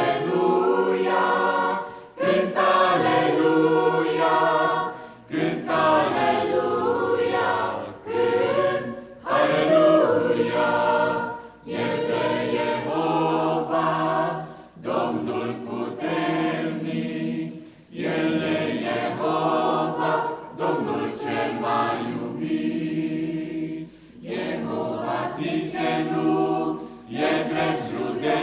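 Mixed choir of men's and women's voices singing a Romanian hymn, in sung phrases broken by short breaths every one to three seconds.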